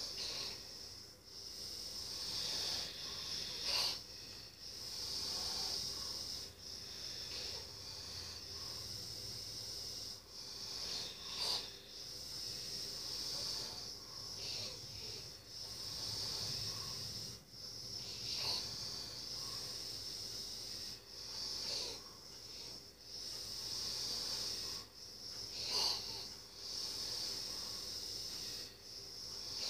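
A sleeping person's breathing, a wheezy hiss that swells and fades about every three to four seconds, with a sharper snort-like catch on some breaths.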